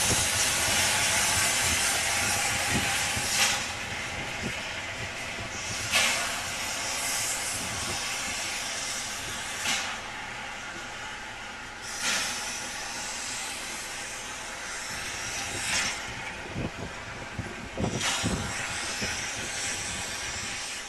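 Narrow-gauge steam locomotive hissing steadily as it moves slowly forward, with a loud burst of steam every few seconds. A few knocks come near the end.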